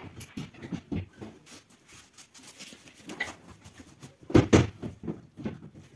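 Drawers being fitted into a flat-pack chest of drawers: light clicks and clatter as they slide on their metal runners, with two loud knocks about four seconds in.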